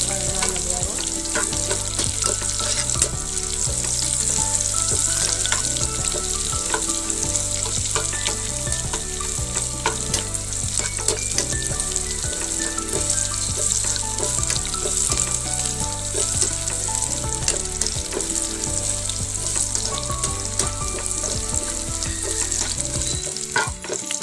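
Unpeeled garlic cloves frying in hot coconut oil, a steady sizzle, stirred and pressed in the pan with a perforated ladle that clicks and scrapes against it.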